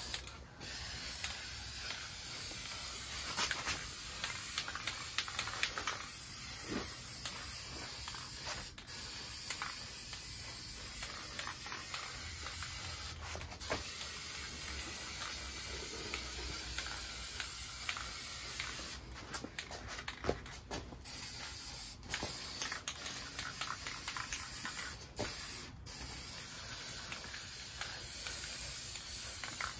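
Aerosol spray paint can spraying touch-up paint over rust on snowmobile skis: a steady hiss with a few short breaks between passes.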